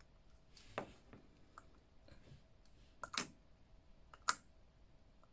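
Light plastic clicks and taps from a vintage Skeletor action figure being handled: three sharper clicks, one about a second in and two later, with fainter ticks between.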